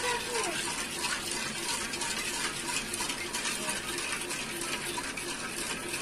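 A metal spoon stirring sugar syrup in a pan on the stove, clinking and scraping against the pan again and again over a steady wet hiss from the heating syrup. The sugar and water are being cooked down for caramel.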